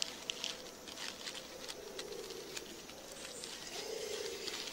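Christmas Island red crabs scuttling over dry leaf litter: scattered light clicks and rustles of their legs and shells on the leaves.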